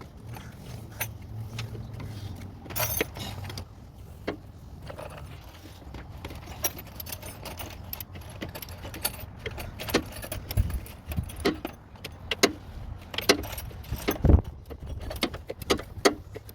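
Metal hand tools clicking and clinking against engine hardware as bolts are worked loose, in irregular sharp knocks with a few louder clanks near the end.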